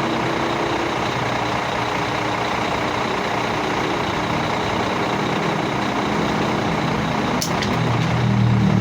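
Heavy vehicle's diesel engine running steadily amid road noise, with a short sharp click or hiss about seven and a half seconds in.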